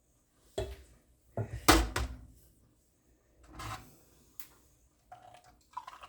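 Kitchen clatter: a string of short knocks and bumps of dishes and utensils being handled, the loudest about two seconds in.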